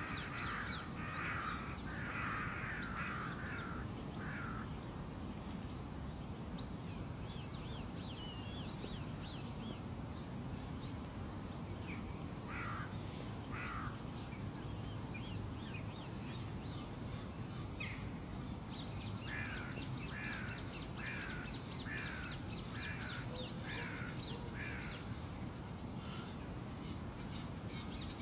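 Birds calling outdoors over a steady low background noise: runs of harsh, repeated calls near the start, briefly in the middle and in a longer run later on, with higher, quicker chirps from other birds scattered between them.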